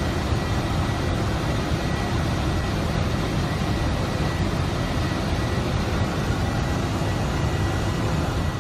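Boeing 747-400 flight deck noise: a steady low rumble and rush of engines and airflow, with a thin steady high whine running through it. It starts to fade right at the end.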